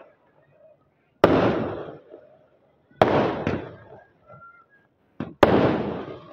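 Aerial fireworks bursting overhead: three loud bangs about two seconds apart, each trailing off in a crackle over about a second, with a small pop just before the third.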